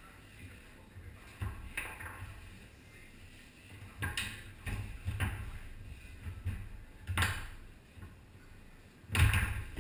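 Foosball play on a Tornado table: the hard ball knocks off the players' figures and the table walls in sharp, irregular hits. The loudest hit comes about nine seconds in.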